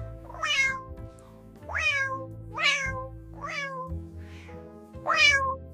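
A cat meowing about five times, each call falling in pitch, over background music with steady held notes.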